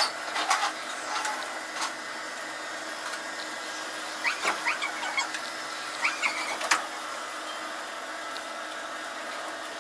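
Electric motors of a mobile robot's powered wheelchair base whirring steadily as it drives, with a few short squeaks at about four and six seconds in and a sharp click just before seven seconds.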